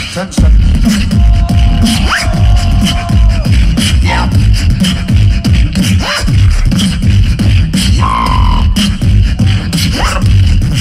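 Two human beatboxers performing a routine together through handheld microphones: heavy bass kicks pound throughout, under a held tone that lasts a couple of seconds from about a second in, several quick rising pitch sweeps, and a short higher held note about eight seconds in.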